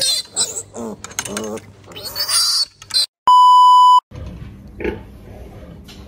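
A piglet squealing repeatedly as it is held for castration, then a steady electronic beep, the loudest sound, for under a second about halfway through, followed by quieter pig grunts.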